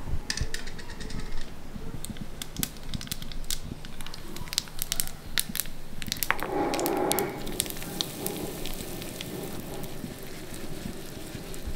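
Tempering of mustard seeds and red chillies spluttering in hot oil in an iron ladle over a wood fire, with many sharp pops and crackles. About six seconds in, a louder sizzle starts and settles into steadier frying.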